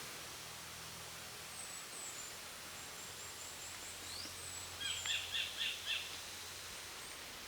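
A bird calling outdoors: a quick run of about five short, arched, whistled notes about five seconds in, over faint thin high chirps and a soft background hiss.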